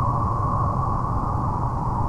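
Steady night-time forest ambience: a continuous low rumble with a hiss centred in the middle range, with no distinct calls or events.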